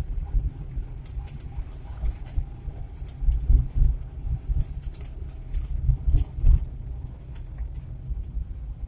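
Old Suzuki Carry 1.0 pickup driving, heard from inside the cab: a low, uneven engine and road rumble with a few heavier bumps, and frequent light clicks and rattles from the cab.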